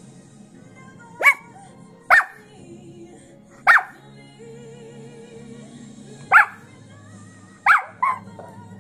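Pomchi (Pomeranian–Chihuahua mix) barking along to a song, six short high barks at uneven gaps, the last two close together, over the music playing in the background.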